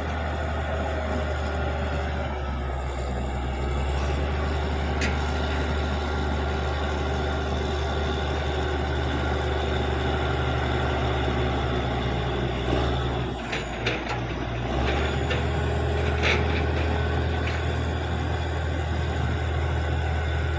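Caterpillar D6G bulldozer's diesel engine running steadily under load, dropping in revs for a couple of seconds about two-thirds of the way through before picking up again, with a couple of sharp metallic clanks.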